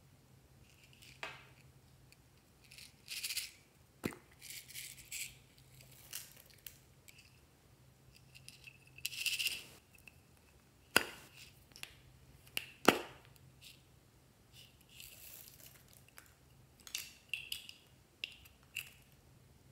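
Small plastic slime containers handled over a glass dish: scattered sharp clicks and taps of plastic, with a few short rustles in between. The loudest two clicks come a little past the middle.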